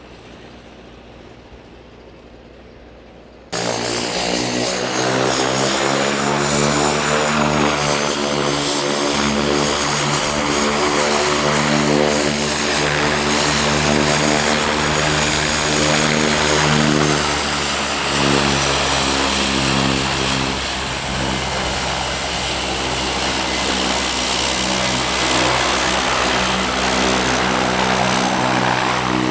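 Propeller airplane engine running loud and steady, with a deep droning hum and a thin high whine. It starts abruptly a few seconds in after a faint background.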